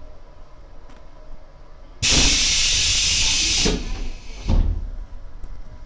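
JR Hokkaido rapid Airport train's pneumatic sliding doors opening at a station stop: a sudden loud hiss of compressed air about two seconds in, lasting under two seconds, then two heavy thuds.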